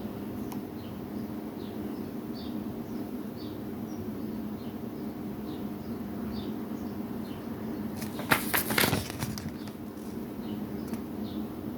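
A DVD case and its packaging handled, with a short burst of rustling and clicks about eight seconds in, over a steady low hum and a faint high chirp repeating about twice a second.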